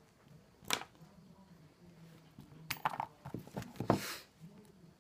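Metal clicks and clatters from handling an Abus bike lock and lockpicking tools: one sharp click near the start, then a quick cluster of clicks and rattles past the middle.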